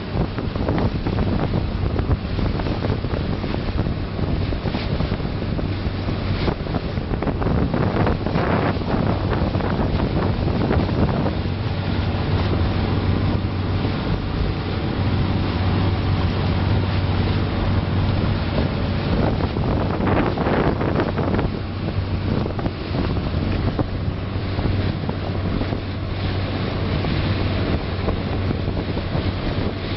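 Small passenger ferry's engine droning steadily under way, with water rushing along the hull and wind buffeting the microphone, the wind swelling louder twice.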